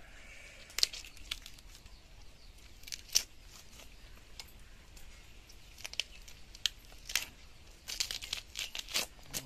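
Irregular sharp crackles and short tearing rasps as the spiny, bony-plated skin of armoured 'shaker' catfish (suckermouth catfish) is pulled apart by hand, with a quicker run of crackles near the end.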